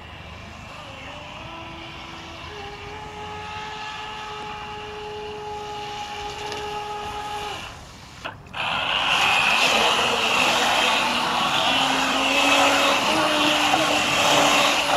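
RC jet boat's motor whining steadily as the boat runs out on the water, the pitch stepping up a little a few seconds in. After a short dip near the middle the whine is much louder and close, mixed with the rush of spray as the boat spins in a tight circle. The motor has a damaged bearing, which the owner says makes a grating noise.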